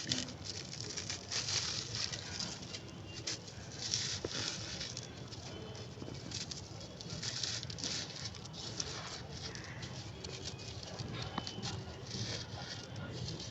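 Brittle, crunchy material being crumbled, giving dense crackling crunches that swell in bursts about once a second, with fine clicks between them.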